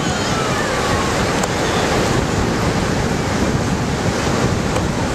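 Sea surf breaking on a beach, a steady rush of waves, with wind buffeting the microphone.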